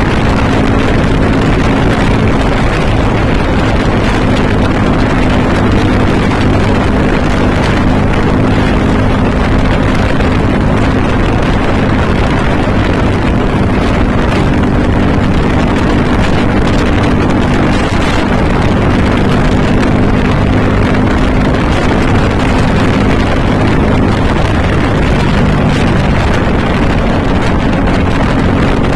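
Motorcycle engine running steadily at cruising speed, with heavy wind noise on the microphone.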